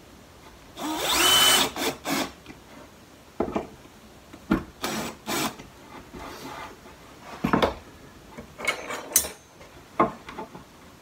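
Cordless drill-driver driving screws through an aluminium strap into a ply panel: one longer run about a second in with a rising whine, then a series of shorter bursts and knocks.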